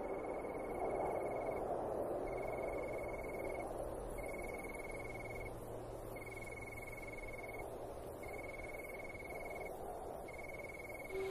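A cricket trilling in repeated high, pulsing bursts of about a second and a half, roughly every two seconds, over a soft steady rushing background.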